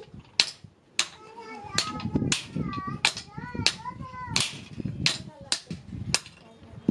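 Hand hammer striking a red-hot iron scissors blade on an anvil: about ten sharp, unevenly spaced blows as the blade is forged flat.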